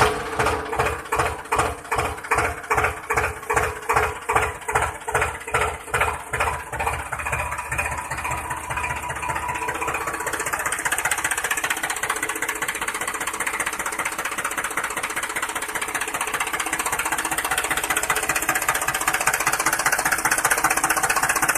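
Small motor and gear drive of a homemade miniature toy tractor running: a rhythmic chugging about twice a second that turns into a faster, steadier buzz about ten seconds in.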